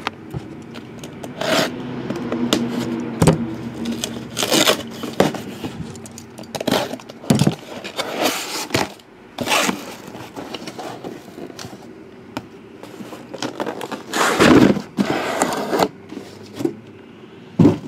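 Cardboard shipping case being opened and handled: irregular scraping, tearing and rustling of cardboard and packing tape, with a longer, louder scrape a little past the two-thirds mark.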